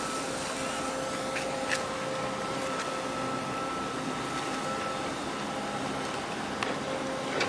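Steady hum of ship's machinery: a few even tones over a broad rushing noise, with a few light clicks along the way.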